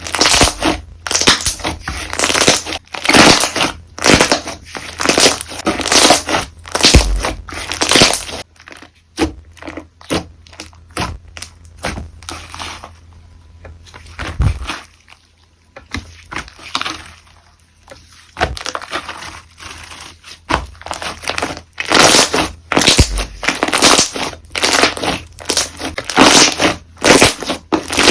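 Slime being squeezed, pressed and stretched by hand, giving rapid runs of sharp clicks and pops, with two short quieter pauses around the middle.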